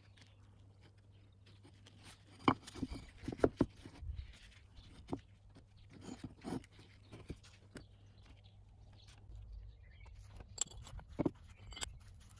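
Wooden blocks being handled and set down on a board: a scatter of sharp knocks and clicks, a few close together about two to three seconds in, more around six seconds and near the end, over a low steady hum.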